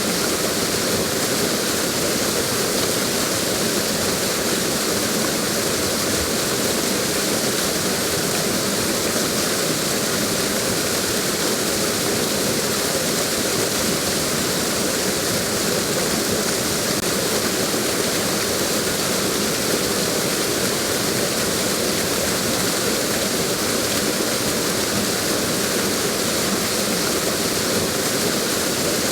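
Waterfall: water pouring over a drop and splashing below, a steady rushing hiss that does not change.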